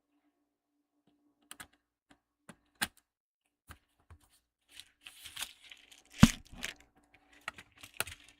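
Hands working on a laptop under repair: scattered small clicks and taps of screws and plastic parts, a stretch of rustling and scraping, and one sharp knock about six seconds in.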